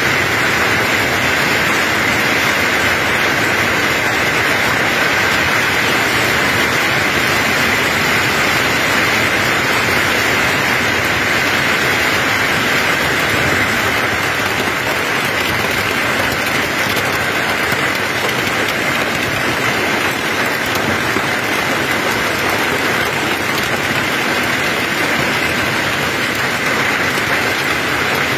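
Heavy hailstorm: hailstones and rain falling hard on the ground in a loud, dense, steady hiss. It eases slightly about halfway through.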